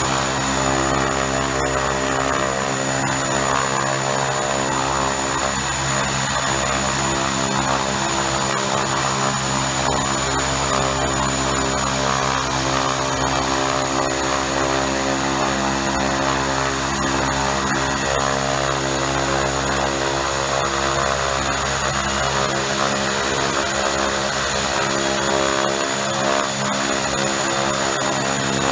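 Twin Pratt & Whitney Canada PT6A-28 turboprop engines of a Piper Cheyenne II running on the ground, their Hartzell propellers turning. A steady propeller drone sits under a thin, high turbine whine.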